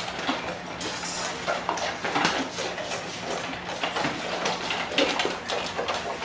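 Several golden retrievers eating from stainless steel bowls: rapid, irregular clicking and clinking of food and muzzles against the metal, over a faint steady hum.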